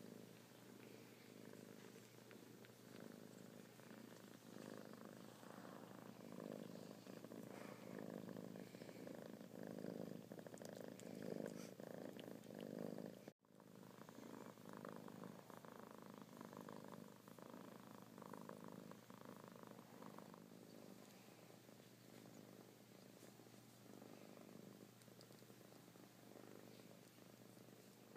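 Domestic cat purring, a soft, steady, rhythmic purr. It is slightly louder in the first half and breaks off for an instant about halfway through before going on.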